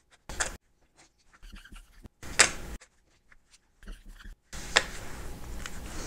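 A marker writing on small cards and the cards being set down on a tabletop, heard as a few short, separate scrapes and taps.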